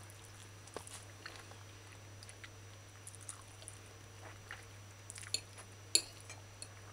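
Quiet chewing of a mouthful of food, with a few soft clicks of a metal fork against a china plate, the sharpest near the end, over a low steady hum.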